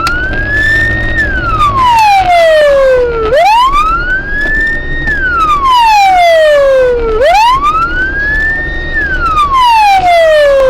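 Emergency vehicle siren wailing, slowly rising and falling in pitch about every four seconds, over a low rumble.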